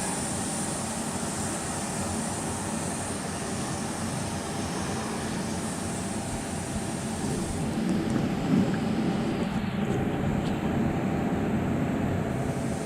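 Steady rumble and hiss of compressed-air spraying equipment feeding a low-volume, low-pressure spray gun. The high hiss thins out about two-thirds of the way in, then returns near the end.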